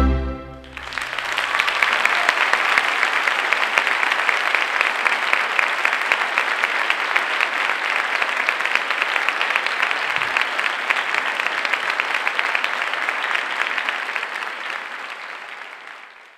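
A final orchestral chord with cello ends within the first second, then an audience applauds steadily, fading out near the end.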